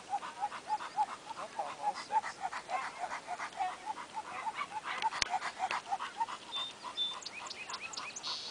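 A terrier barking in rapid high yips, about five a second, easing off after about five seconds. A single sharp click comes at about the same point.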